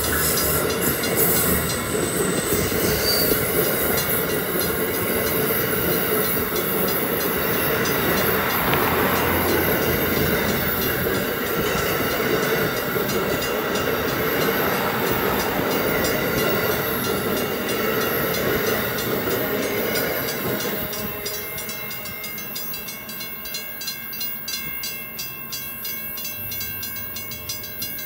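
Amtrak Northeast Regional train of Amfleet passenger coaches passing at speed, a steady rush and rumble of wheels on rail that fades away about twenty seconds in as the last car clears. As it fades, a grade-crossing bell is left ringing in fast, even strokes.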